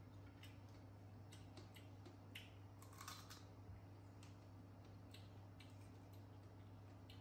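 Near silence: a steady low hum with faint scattered clicks of small green fruit being bitten and handled, a few clustered about three seconds in.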